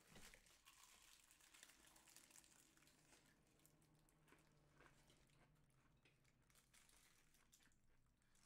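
Near silence, with faint chewing and the soft crinkle of a paper sandwich wrapper as a person bites into and chews a KFC Double Down.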